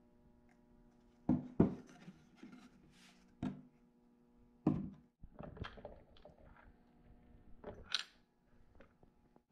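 Handling noises on a workbench: a few separate knocks and thunks as a mast-pivot mockup and a PVC pipe are picked up and set down, the loudest pair about a second and a half in, over a faint steady hum.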